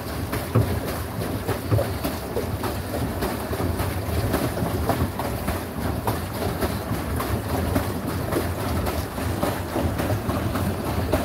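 Swan pedal boat under way: steady churning of the paddle wheel in the water with scattered small clicks, and wind rumbling on the microphone.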